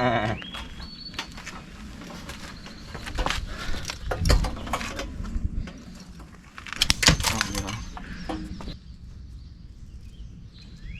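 Metal crashing and clattering as an old central air conditioner is smashed apart, with loud impacts about three, four and seven seconds in.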